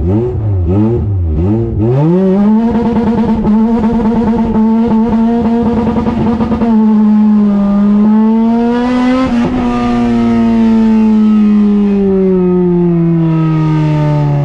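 Car engine blipped up and down several times in quick succession, then held at a steady high rev with a rough, fluttering note. It swells briefly about two-thirds of the way through, then drops steadily in pitch as the car slows.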